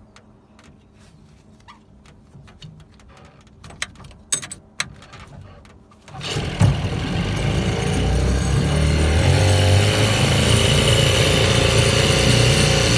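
A Veterok-8 two-stroke outboard motor is started: a few clicks and knocks, then about six seconds in the engine catches and keeps running steadily, level climbing a little as it settles. It is being run just after its water pump was replaced.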